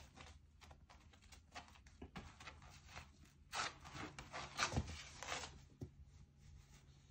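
A beagle's claws scratching and its body rubbing on a woven floor mat as it turns and then rolls on its back: a run of short scrapes, loudest and densest about halfway through.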